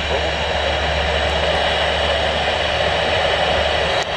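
Steady static hiss from a weather radio receiver, with a low hum underneath, broken by a brief dropout about four seconds in.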